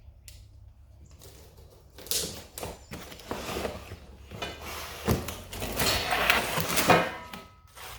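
Handling noises from the grab bar kit being unpacked: rustling and clattering with several knocks, starting about two seconds in and busiest near the end.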